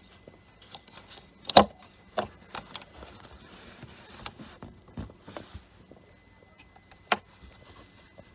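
Gloved hands handling a small plastic electrical plug among engine-bay parts of an engine that is not running: scattered clicks and knocks, with two loud sharp clicks about one and a half seconds in and near the end.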